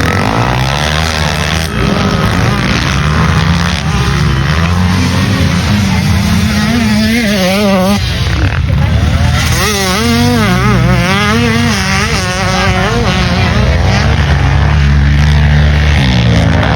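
Motocross motorcycle engine at race pace, its pitch rising and falling over and over as the rider works the throttle through the gears.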